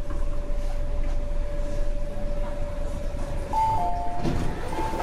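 MTR Tung Chung Line K-train stopping at a platform: a steady whine and rumble. About three and a half seconds in, the door chime sounds, a high note falling to a lower one, played twice. A thud and rush between the chimes, as the doors slide open.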